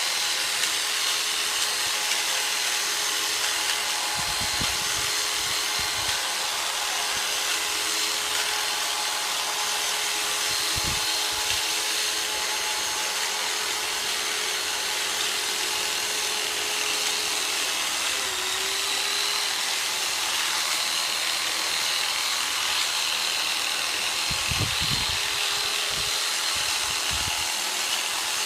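Jigsaw converted into a percussion massager, its motor running steadily at high speed with the reciprocating tip pressed into the thigh muscle. The motor holds one pitch apart from a brief dip about two-thirds of the way through. A few low thumps come early, near the middle and near the end.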